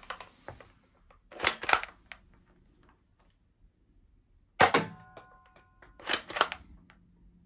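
Orange toy foam-dart blaster being primed with a double plastic rasp, then fired with one sharp snap a few seconds in, followed by a faint ringing tone and another double rasp as it is primed again.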